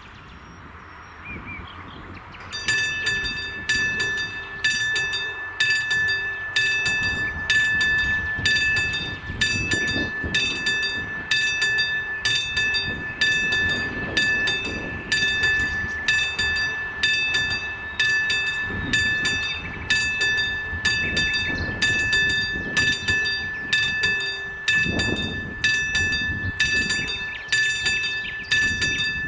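Level-crossing warning bell starting about two and a half seconds in, then striking steadily a little over once a second, each stroke ringing on into the next: the crossing has been activated for an approaching train.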